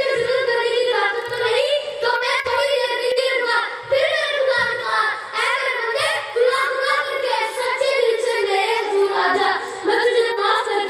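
A girl's high-pitched voice in a melodic, sung recitation, holding and bending the pitch through long phrases.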